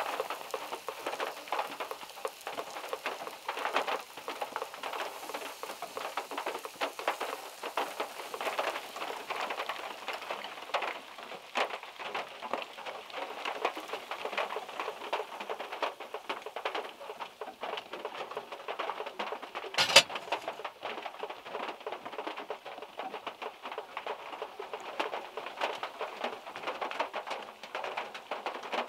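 Rain and drips from overhead trees pattering on the roof of a small car, heard from inside the car as a dense, even tapping, with one sharp, much louder tap about two-thirds of the way in.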